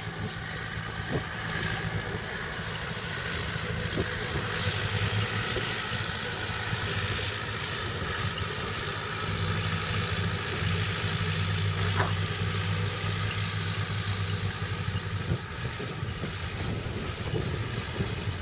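New Holland T8020 tractor's diesel engine running steadily as it pulls a loaded silage wagon past, its hum growing stronger around the middle.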